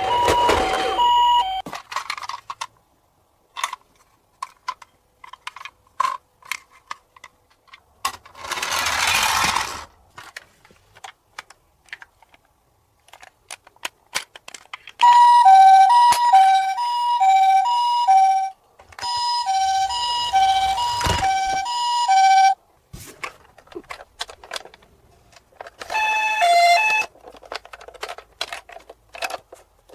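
A toy ambulance's electronic hi-lo siren sounds in several bursts of a few seconds, switching between two pitches a few times a second. Small plastic clicks and knocks come between the bursts, and a short rushing noise comes about nine seconds in.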